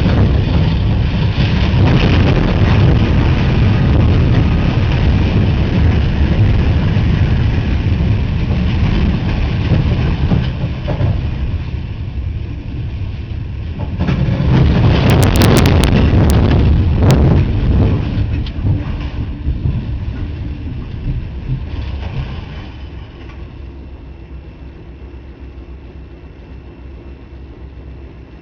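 Tornado winds roaring and buffeting the microphone, with a few sharp cracks about halfway through. The roar dies down over the last several seconds.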